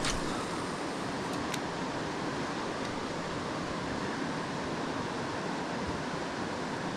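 Steady rushing of flowing river water, an even wash of noise with a couple of faint clicks in the first two seconds.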